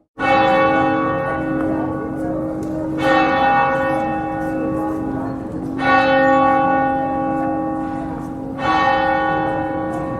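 Church bell tolling slowly: four strikes about three seconds apart, each ringing on under the next, after a split-second gap at the start.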